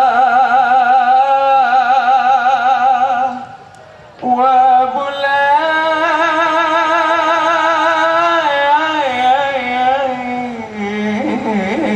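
A dikir barat lead singer's solo male voice holding long, ornamented notes with a wide vibrato. The first phrase lasts a few seconds. After a short breath a second, longer phrase begins about four seconds in, and its pitch wavers near the end.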